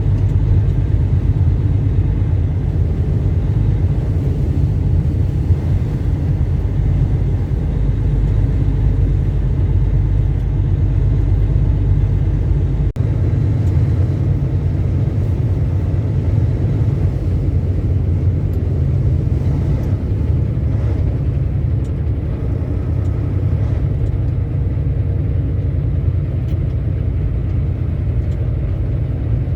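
Steady low rumble of a semi truck driving, heard inside the cab: engine drone mixed with road and wind noise. There is a brief dip in loudness about 13 seconds in.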